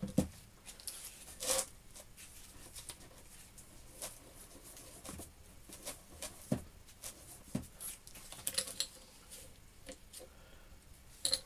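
Irregular clicks and knocks of a homemade steel machine vice being handled on a workbench, its parts shifted and the body moved and set down, the loudest clunks near the start.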